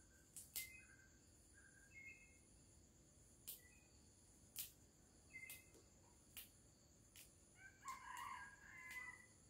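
Faint, sharp clicks of rice paddy herb stems being snapped into small pieces by hand. Faint short bird calls sound behind them, with a longer call about eight seconds in.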